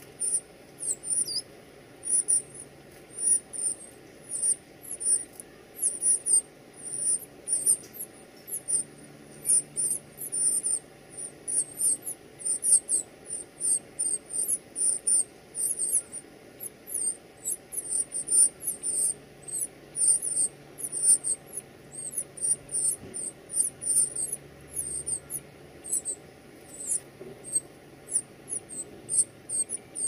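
Northern cardinal nestlings begging: a rapid run of very high, thin cheeps, several a second, from chicks gaping for food.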